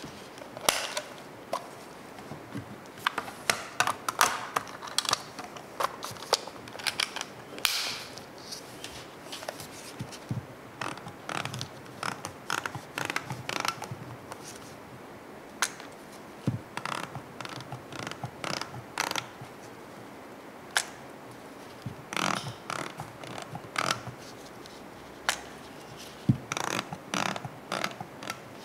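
Clicks and ratcheting from a reusable 35mm film camera in its clear plastic hard case, as the film-advance wheel is wound and the shutter button pressed to bring the frame counter to 1. The clicks come in irregular clusters.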